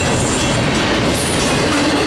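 Freight train rolling past, its wheels on the rails making a loud, steady noise with no let-up.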